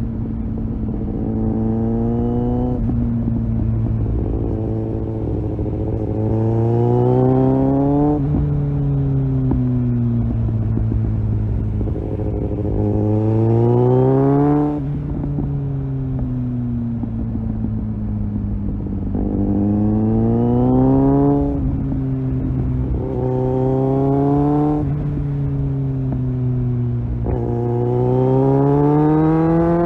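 Kawasaki Z800 inline-four engine under way, climbing through the revs under gentle throttle and then easing back down, about six times over.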